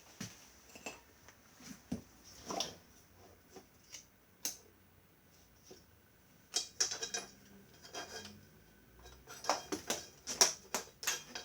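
Hard parts being handled: scattered clicks, knocks and rattles, coming more thickly in the second half.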